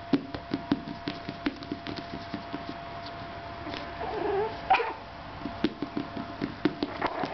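A run of sharp, irregular knocks, with a Yorkshire terrier giving a short, low vocal sound about four seconds in as it reacts to the knocking.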